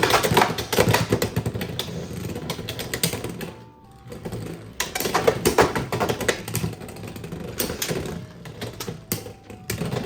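Two attack-type Beyblade X spinning tops, one a Keel Shark 3-60LF, spin and skid around a plastic stadium, giving a dense run of fast clicks and rattles with occasional sharper clacks where they meet. The noise drops briefly near four seconds and then picks up again.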